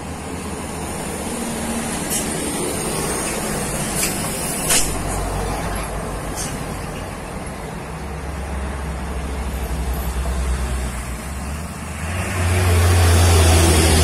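Heavy diesel trucks running through a bend, with a steady low engine rumble and a few short hisses that sound like air brakes. The rumble swells loudly near the end as a large box truck passes close.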